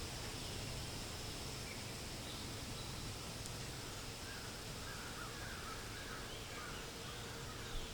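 Forest ambience: a steady hiss of wind in the leaves with a faint steady high tone, and small birds chirping in short phrases from about halfway through.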